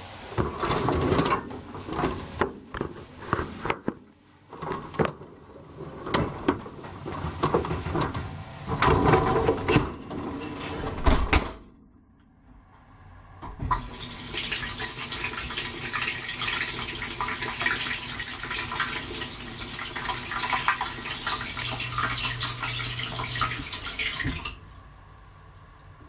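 Knocks and rattles of the dishwasher rack and door as a motherboard is loaded and the machine is shut. About 14 s in, the dishwasher's water spray starts hissing and splashing over the board, heard from inside the dishwasher, with a low hum for a couple of seconds before the spray cuts off near the end.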